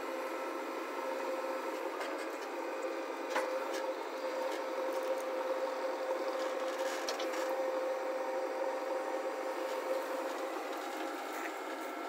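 JCB 3DX backhoe loader working its digging arm: the engine and hydraulics run steadily with one constant whine, and a few faint clicks come through about three and seven seconds in.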